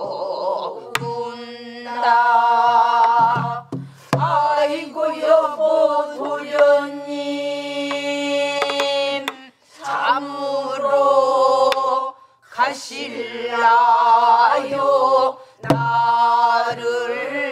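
A group of voices sings pansori together in long, wavering held notes with short breaks between phrases. It is accompanied by a few sharp strikes on a buk barrel drum.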